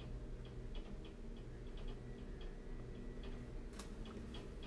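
Soft, regular ticking, about three ticks a second, over a steady low hum, with a few sharper clicks near the end.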